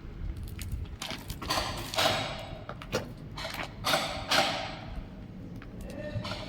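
Arc welding on a cracked excavator bucket, heard as irregular crackling bursts with sharp starts. A few louder ones last about half a second and fade.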